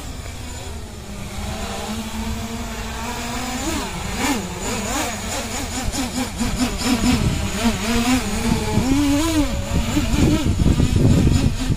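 7-inch FPV quadcopter's motors and propellers buzzing, the pitch swooping up and down as the throttle changes in acro flight. It grows louder as the drone comes closer and is loudest near the end.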